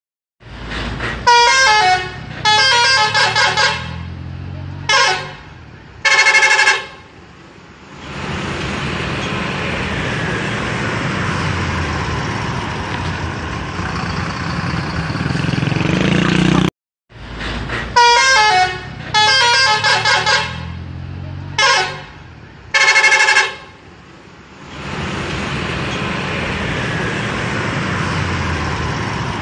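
Tour bus telolet horn playing its multi-note tune: two quick runs of changing notes, a short toot and a longer held chord, then the bus's engine and road noise running steadily. The same horn sequence and engine noise come again after a short break just past the middle.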